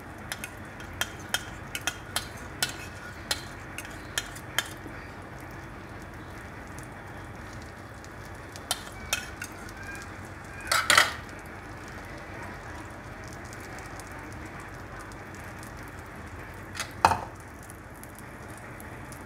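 Egg and bread frying in oil on a flat pan over a low flame, a steady gentle sizzle. A fork clicks sharply against the pan many times in the first few seconds, then a few more times, loudest about eleven seconds in, and once more near the end.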